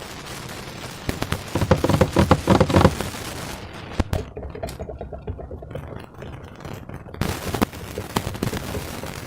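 Slime being squished and handled by hand: sticky crackling and small wet pops, densest and loudest about two to three seconds in, then a few isolated clicks.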